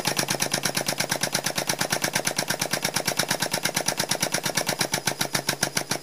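Press driving a keyway broach down through a steel die blank as the teeth cut the keyway, with an even, rapid mechanical chatter of about a dozen pulses a second that starts suddenly.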